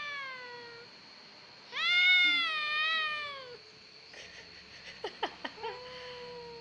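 Kitten meowing: one cry tails off just after the start, then a long, loud, drawn-out meow about two seconds in. A few clicks follow, then a fainter, level cry near the end.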